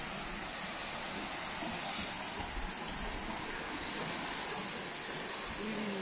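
Steady high-pitched hiss of tropical forest ambience along the trail, swelling and easing slightly every couple of seconds.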